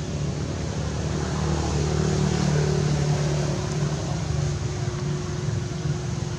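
Low engine hum of an unseen motor vehicle, growing louder about a second and a half in and easing off after the middle.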